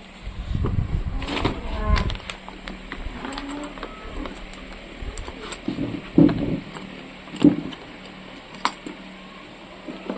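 Irregular handling sounds of unboxing: rustling, with scattered clicks and several sharp knocks, the loudest in the second half.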